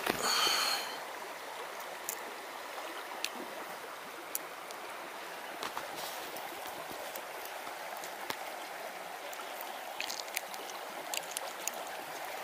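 Steady rush and ripple of a small river flowing past the bank, with scattered faint clicks. A short high-pitched call sounds at the very start.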